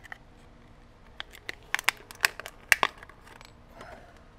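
A quick run of about half a dozen sharp clicks and clacks, between about one and three seconds in, as small tools are picked up and set down among others on a cluttered workbench.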